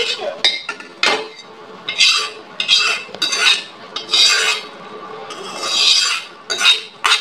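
Steel spoon scraping tempering out of a steel kadai (wok) into a soup pot. About ten uneven metal-on-metal scrapes with clinks of the spoon against the pan.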